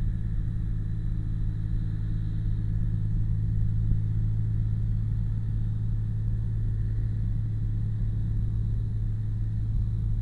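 Locomotive idling with a steady low engine hum, a deep tone with a few overtones that stays level throughout.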